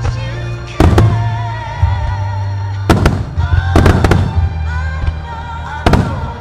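Starmine aerial fireworks shells bursting: about six sharp bangs, some in quick pairs, over music playing steadily throughout.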